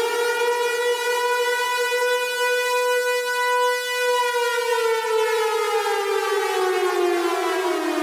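Civil defense siren wailing: one pitched tone holds near its peak, then slides slowly down in pitch through the second half.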